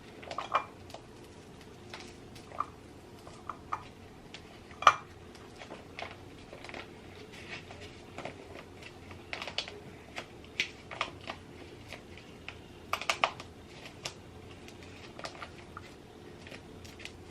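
Irregular light clicks, taps and crinkles of a bag of hair bleach powder and a plastic cup being handled, with one sharper tap about five seconds in and a quick cluster of clicks near thirteen seconds.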